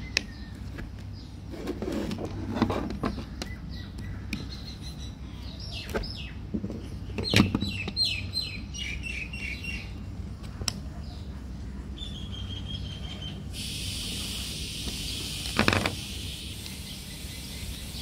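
Screwdrivers prying at the plastic housing of a front-load washer's door lock switch, with several sharp clicks and snaps, the loudest about seven seconds in. Short high chirping notes sound between about four and ten seconds in, and a steady hiss comes in about three-quarters through.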